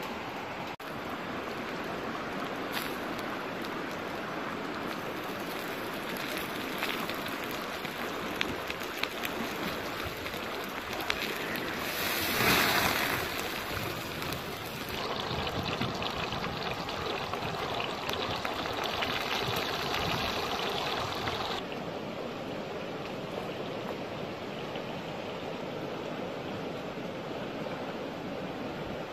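Steady rush of a small stream running over rocks. A few sharp clicks come in the middle, followed by a brief louder rush. Later an extra layer of hiss starts and then cuts off suddenly.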